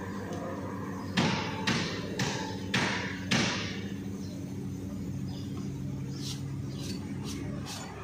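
Five sharp knocks about half a second apart over a steady low hum, with faint quick ticks near the end.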